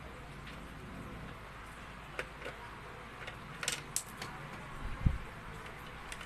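Scattered clicks and light knocks of pliers and hands working on a blender's plastic motor base, with a dull thump about five seconds in.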